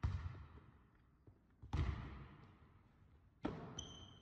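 Basketball hitting a hardwood gym floor three times, about a second and a half apart, each impact echoing in the large hall. A brief high squeak near the end.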